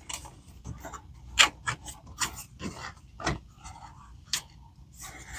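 Plastic clips and trim pieces being pressed and clicked back into place by hand, a string of irregular clicks and knocks, the sharpest about one and a half, three and a quarter and four and a half seconds in.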